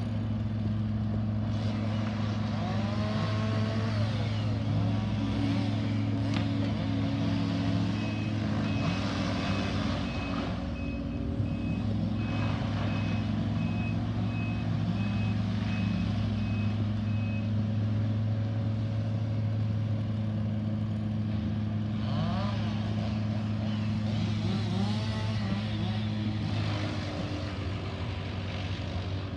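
Heavy machine engine running steadily. A reversing alarm beeps at an even pace from about eight seconds in, stopping after about ten seconds.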